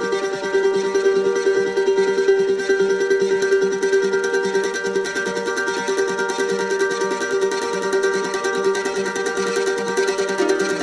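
Background music: a plucked string instrument playing quickly repeated notes over sustained chords.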